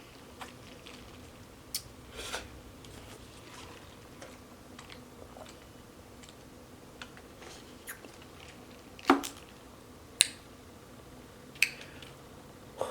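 Close-miked eating and drinking mouth sounds: scattered smacks, clicks and swallows over a quiet room, with the loudest smack about nine seconds in.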